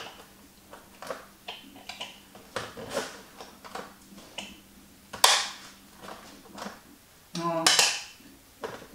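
A spoon scraping and tapping against a blender jar and bowl as minced beef is spooned into the jar: scattered light clinks and knocks, the sharpest about five seconds in.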